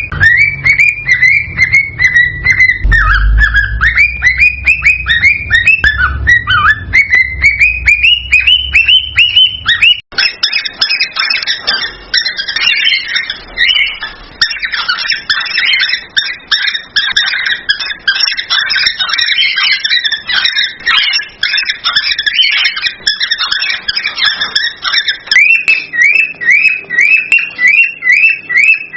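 Cockatiels chirping and whistling in quick repeated curved notes, about three a second. About ten seconds in it changes abruptly to dense, overlapping chatter of several birds. Near the end it returns to rapid repeated chirps.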